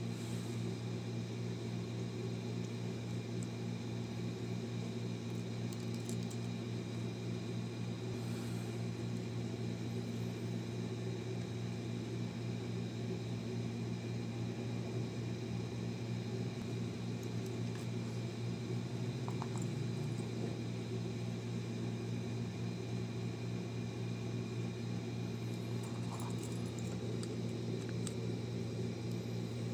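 Steady low mechanical hum made of several held tones, with a few faint clicks around the middle and near the end.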